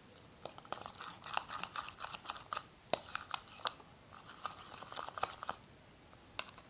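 A spoon stirring sticky homemade glitter-glue slime in a small pot: a run of irregular crackling clicks and sticky pops that thins out after about five seconds. The slime is still tacky and just beginning to pull away from the pot.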